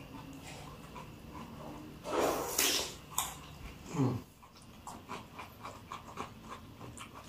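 Close-up eating sounds of crunchy raw fruit and cucumber dipped in chili sambal. About two seconds in comes a loud noisy breath, and near four seconds a short falling vocal sound, then a run of quick small chewing and crunching clicks.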